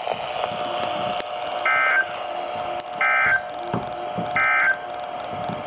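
NOAA Weather Radio Emergency Alert System end-of-message data bursts: three short buzzy bursts, about a second and a half apart, marking the end of the severe thunderstorm warning broadcast. A faint steady tone runs underneath.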